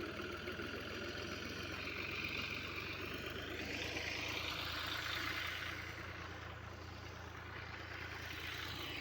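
Engine running steadily with a low hum, under a hiss that swells about two seconds in and fades again a few seconds later.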